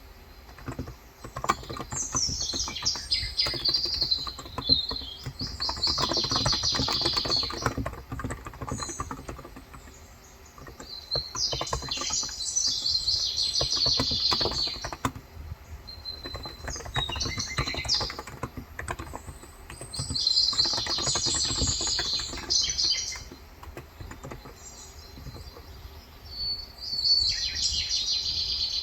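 Typing on a Cox Endeavour electrocapacitive (Topre-style) tenkeyless keyboard with light 35 g keys: runs of rapid keystrokes in bursts of a few seconds, with short pauses between them. Birds chirp over the typing throughout.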